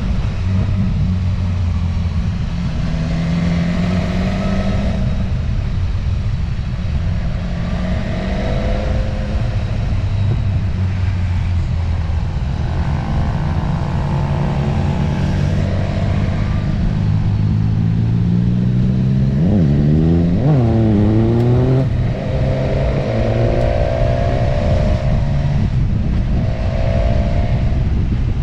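Motorcycle engine running under way, its pitch shifting as it pulls through the gears, with rushing air noise. About twenty seconds in, the revs climb and drop sharply twice.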